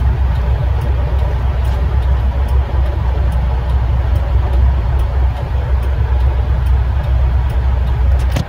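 Steady low engine and road rumble of a moving vehicle, heard from inside its cab, with faint regular ticking over it.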